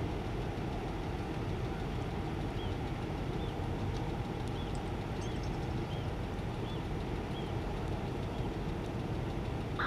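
Steady low rumble of engines idling, with faint short high chirps about once a second.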